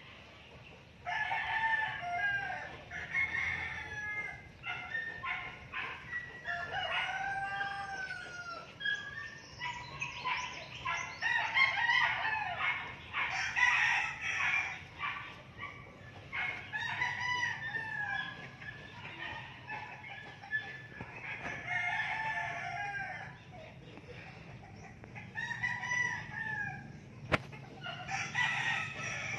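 Chickens clucking and crowing, one call after another with some overlapping, and a single sharp click near the end.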